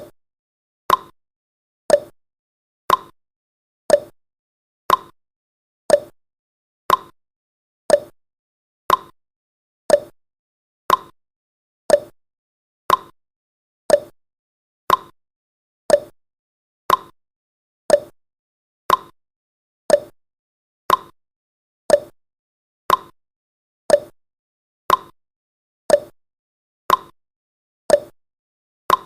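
Countdown timer's tick sound effect: one short, sharp tick every second, evenly spaced, with silence between.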